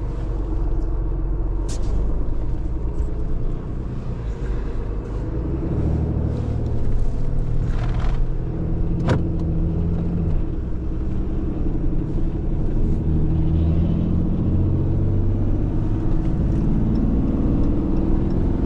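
Tow truck's engine pulling under load, its pitch rising in steps as the truck accelerates through the gears. There are two sharp clicks, about 2 s and 9 s in.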